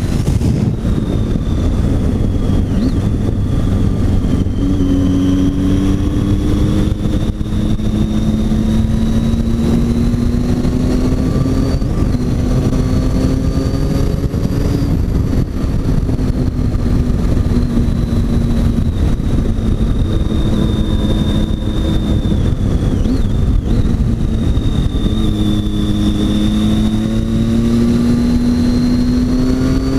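Triumph Tiger 800 XC's three-cylinder engine under way, its note climbing steadily as it accelerates and dropping back several times, under a constant rush of wind noise.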